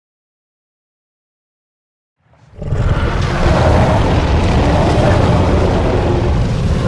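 Custom-made Kronosaurus creature sound effect: after silence, a loud, long, rough roar with a heavy low rumble starts about two and a half seconds in and holds steady.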